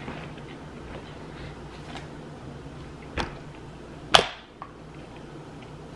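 Two sharp hand claps about a second apart, the second louder, over a faint steady room hum.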